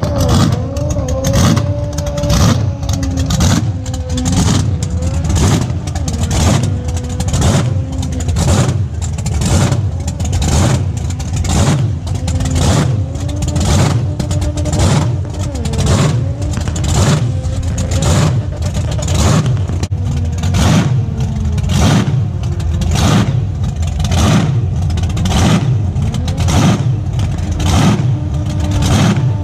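Australian burnout car's engine held at high revs during a burnout, loud and pulsing rhythmically about three times every two seconds.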